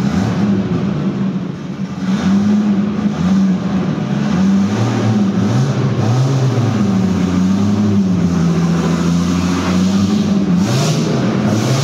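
BMW E30 race car's engine running at a rough, wavering idle, with short throttle blips about two, five and eleven seconds in, as the car rolls forward slowly.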